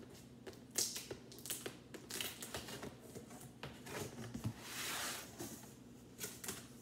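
Cardboard air fryer box being opened by hand: flaps and a cardboard insert scraping, clicking and rustling, with a longer sliding rustle about five seconds in.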